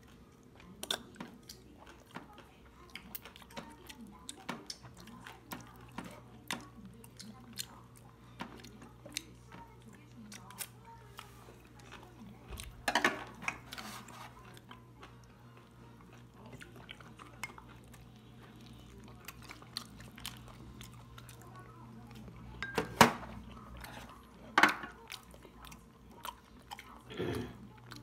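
Chopsticks and a spoon clicking and scraping against ceramic bowls and plates during a meal, with chewing between. A few louder clinks come in the second half.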